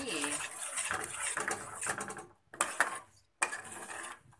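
Hot water poured into a steel pot of porridge for about the first two seconds, then a metal spoon stirring and scraping against the pot in short strokes with a few clinks.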